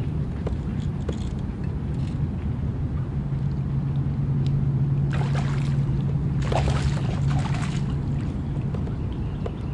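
Boat motor running with a steady low hum. Two brief hissing, splashy bursts come over it about five and seven seconds in.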